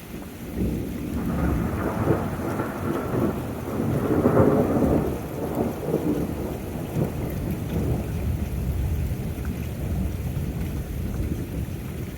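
A thunder rumble breaks in about half a second in, swells to its loudest around four seconds, then trails off into a long, steady low rumble over constant rain.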